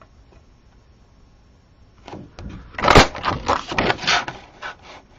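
A hand-held craft leaf punch snapping through cardstock with one sharp click about three seconds in, surrounded by smaller clicks and paper rustling as the card is shifted in the punch.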